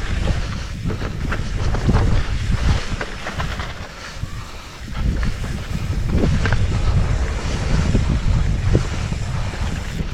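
Wind buffeting the microphone of a camera on a moving mountain bike, a loud low rumble, with the bike knocking and rattling over rough trail. The wind noise eases briefly about four seconds in, then picks up again.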